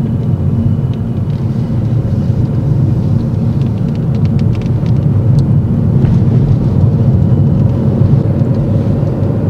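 A car driving along, heard from inside its cabin: a steady low rumble of engine and road noise.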